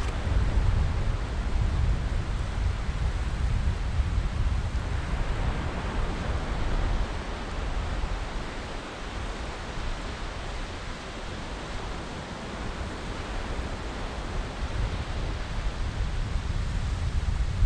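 Wind gusting on the microphone as a fluttering low rumble, over a steady hiss of surf from the incoming tide. The wind eases in the middle and picks up again near the end.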